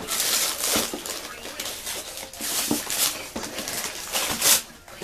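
Wrapping paper tearing and crinkling in repeated rustling bursts as a present is unwrapped, with the loudest rip about four and a half seconds in.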